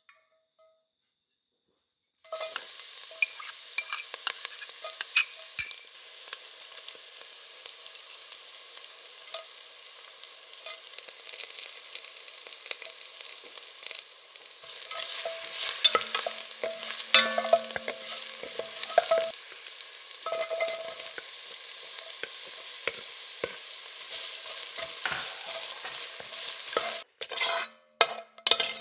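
Whole spices, garlic and onion sizzling in hot olive oil in an enamelled cast-iron pot. The sizzle starts about two seconds in and grows louder about halfway through, with scattered clicks. Near the end a wooden spoon stirs the onions against the pot.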